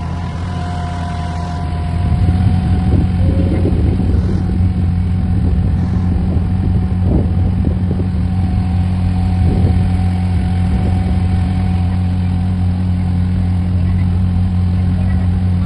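An engine running steadily with a low, even hum that grows louder about two seconds in.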